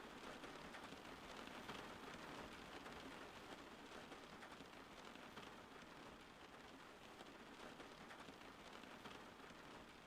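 Faint, steady rain falling, an even patter with no breaks or single loud drops.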